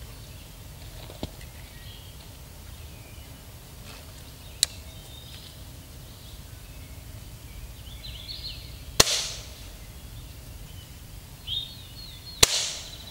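Gamo Whisper Silent Cat .177 break-barrel air rifle fired twice, about three and a half seconds apart, each shot a sharp crack with a short ringing tail. A single sharper click comes about four and a half seconds in.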